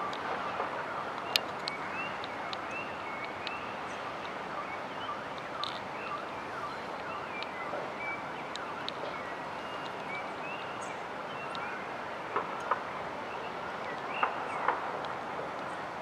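Small birds chirping in many short, high calls throughout, over a steady background hum of city traffic, with a few sharp clicks near the end.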